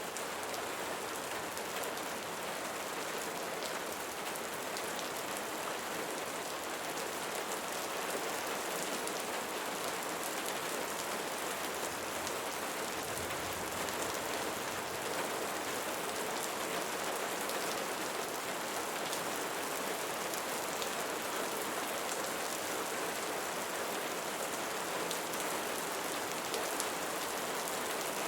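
Steady rainfall, with fine drops pattering on a surface.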